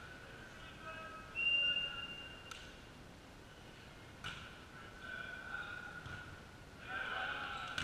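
Indoor volleyball: a short steady whistle blast about a second and a half in, then two sharp ball strikes about 2.5 and 4 seconds in, with player shouts rising near the end.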